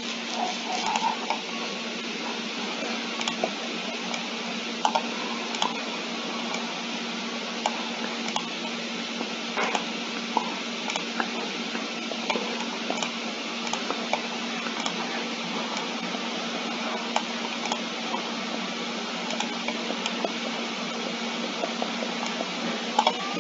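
Scattered computer mouse clicks, a few at a time at irregular gaps, over a steady hiss and low hum.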